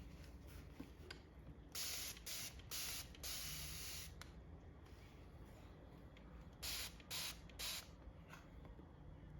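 Hand spray bottle spritzing in short hissing bursts: four sprays starting a little under two seconds in, then three quicker ones about seven seconds in.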